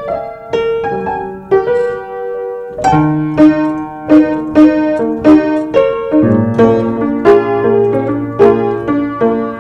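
Piano being played: struck notes and chords ringing and fading one after another. After a short pause about two seconds in, the notes come in a steadier, evenly paced run, and low bass notes join about six seconds in.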